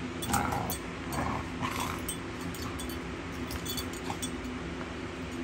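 Puppies giving short little calls while tussling over a plush toy, about four in the first two seconds and quieter after, with light clicks throughout.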